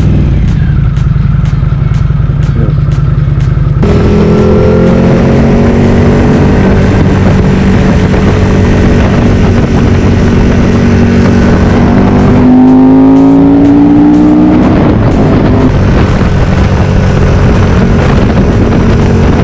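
Motorcycle engine running at road speed with wind rush, heard from a bike-mounted camera. The sound changes abruptly about four seconds in, and about two-thirds of the way through the engine note climbs for a couple of seconds as the bike accelerates.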